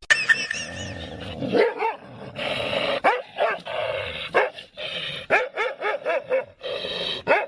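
A dog barking and yipping over and over, in short calls that rise and fall in pitch.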